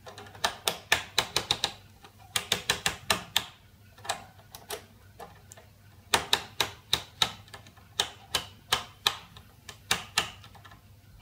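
Rotary time-base selector switch of a C1-118 analog oscilloscope clicking through its detent positions, in quick runs of sharp clicks with short pauses between them.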